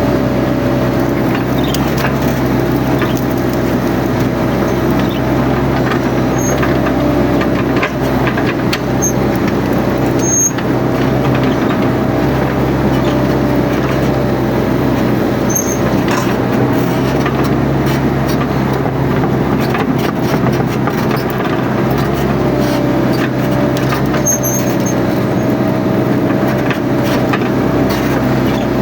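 Mini excavator's diesel engine running steadily under load, a constant drone with a wavering higher tone above it, while it clears brush, with frequent short cracks and knocks.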